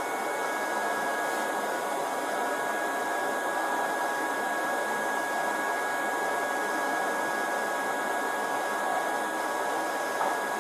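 Steady blowing hiss like a fan or air blower, with a faint constant high whine running through it.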